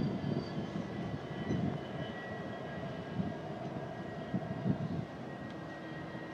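Wind buffeting the microphone in irregular low gusts over the steady drone of a Union Pacific diesel locomotive running; the gusts ease near the end.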